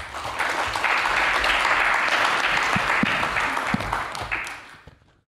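Audience applauding, a steady wash of clapping that fades near the end and then cuts off abruptly.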